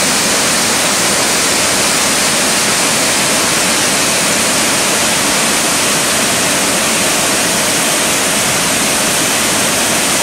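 Waterfall and the white-water cascade over boulders below it: a loud, steady rush of falling water.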